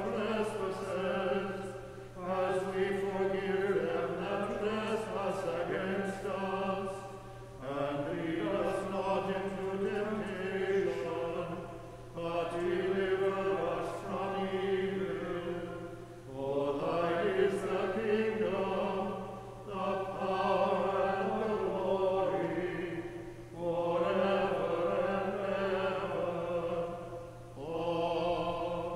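Small church choir singing chant in phrases of about four seconds, with brief breaks between them.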